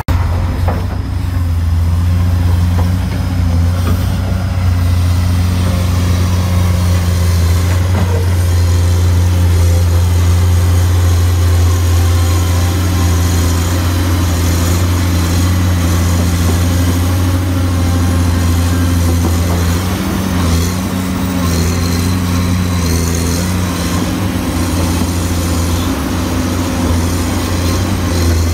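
Komatsu PC220 hydraulic excavator's diesel engine running with a steady low hum, its pitch shifting slightly now and then as it works.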